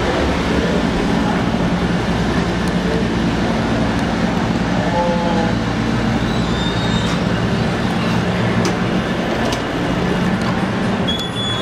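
Steady low rumble of an idling vehicle engine, with a few brief high squeaks.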